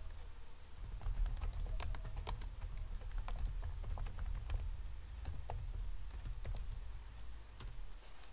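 Computer keyboard being typed on: irregular, individual key clicks as a command is entered, over a low steady hum.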